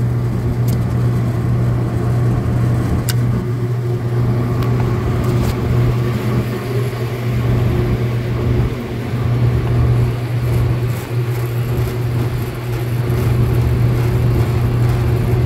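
Rooftop refrigeration condenser fans running with a steady low hum, including a newly installed three-phase condenser fan motor now turning in the correct direction after two of its leads were swapped. A couple of light clicks in the first few seconds.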